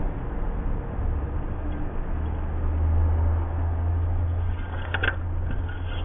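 Steady low rumble, with a short sharp click about five seconds in.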